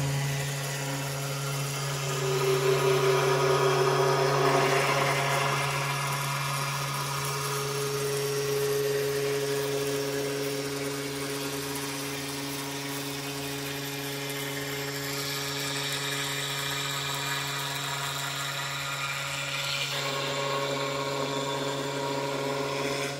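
CNC foam-milling machine cutting expanded polystyrene with a long spindle-driven bit: a steady low motor hum under a hiss of the cutter chewing through the foam. Higher machine tones come and go, changing pitch every few seconds as the head moves.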